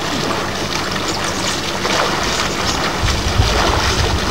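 Steady hiss of wind on a camcorder's microphone, with a low buffeting rumble about three seconds in.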